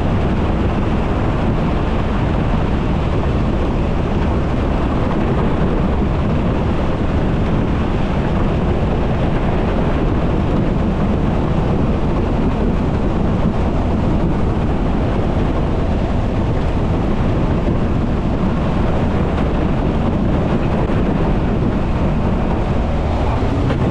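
A Mercury 25 hp tiller outboard running steadily at planing speed on a 14 ft aluminium jon boat, mixed with wind on the microphone and water rushing past the hull.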